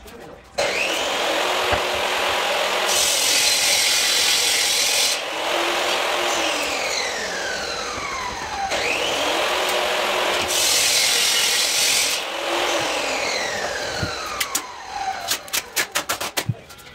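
Loud, harsh scraping noise of the sawing or rasping kind, starting suddenly and running in two near-identical passes of about eight seconds, each with a falling whine; a run of quick clicks near the end.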